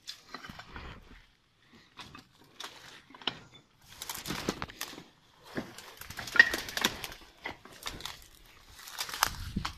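Footsteps through tall weeds, with leaves and stems rustling and brushing against the person in irregular bursts.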